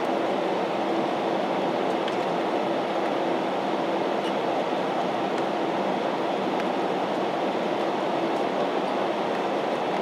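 Steady cabin noise inside an Airbus A321-211 taxiing, its CFM56 turbofan engines running at low taxi power.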